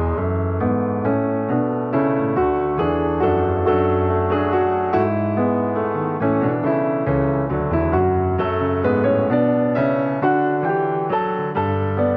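Keyboard music on a piano-like instrument: a steady run of notes over held low chords.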